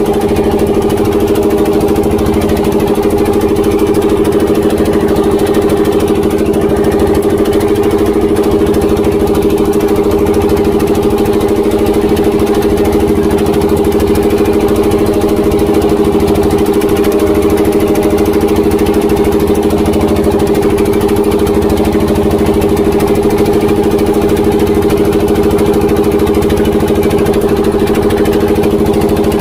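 Tianli 1115 single-cylinder diesel engine of a small wooden boat running steadily under way at cruising speed, a constant drone with no change in pace.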